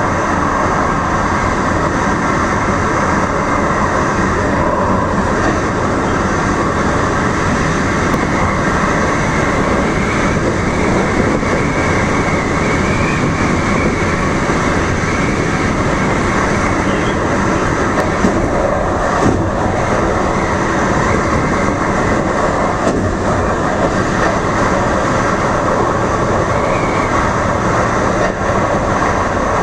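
DART light rail train running at speed, heard from inside the car: a steady, loud noise of wheels on the rails and the running gear.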